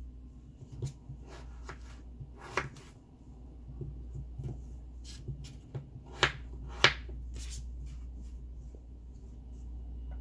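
Kitchen knife slicing a raw peeled potato on a cutting board: irregular sharp taps as the blade goes through and knocks the board, the loudest a few seconds in and again around six and seven seconds in, over a steady low hum.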